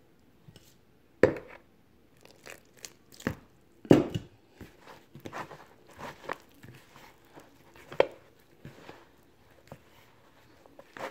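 Hands kneading a stiff flour-and-water dough in a bowl: irregular knocks and crackling, crumbly rustles as the dough is pressed and pushed around, the loudest knocks about a second in and at about four seconds.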